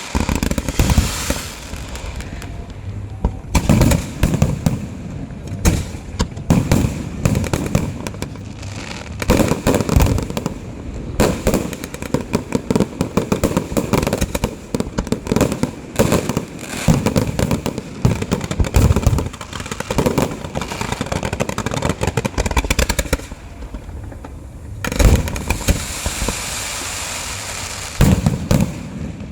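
Fireworks and firecrackers going off: a long, dense run of loud bangs with crackling, and a thick spell of crackle near the end.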